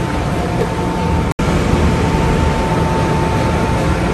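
Steady rush and hum of a restaurant kitchen's ventilation fans, with a thin steady whine, broken by a brief dropout about a second in.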